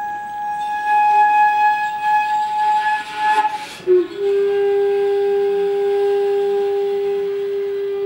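Shakuhachi bamboo flute holding a high note that grows breathy and rough about three seconds in, then dropping to a low note about four seconds in and holding it steadily.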